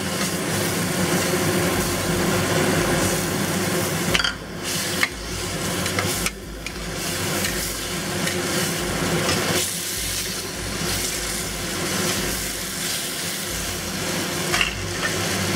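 A stir-fry of cod and sugar snap peas sizzling in the pan while a spatula stirs and scrapes through it, the cornstarch slurry just added to thicken the sauce. A couple of brief knocks about four to five seconds in.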